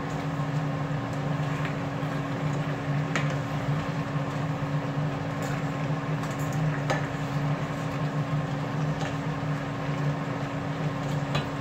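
Shrimp sizzling in a frying pan as they are turned with tongs, with a few sharp clicks of the tongs against the pan. A steady low hum runs underneath.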